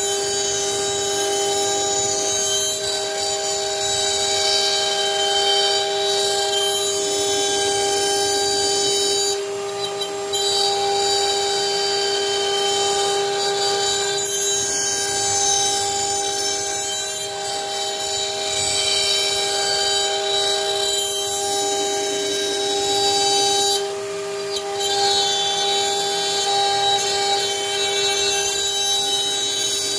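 CNC router spindle running with a steady high whine while its bit cuts into a wooden board, with a hiss of cutting on top. Twice the cutting noise briefly drops away, and the whine carries on unchanged.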